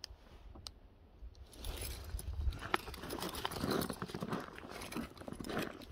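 Footsteps crunching through fresh snow, starting about a second and a half in, after two small clicks.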